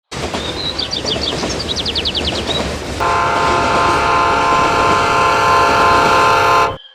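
Train running with a low rumble, its horn sounding a steady held note from about three seconds in and cutting off suddenly near the end. High, rapid chirps sound over the rumble during the first few seconds.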